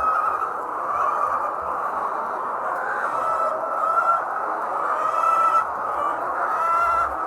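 A large flock of layer hens clucking and calling over one another in a steady din, with a few louder calls standing out.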